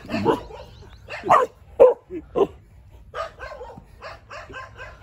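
Young Rottweiler barking at a small chicken, four loud short barks in the first two and a half seconds, then quieter short calls.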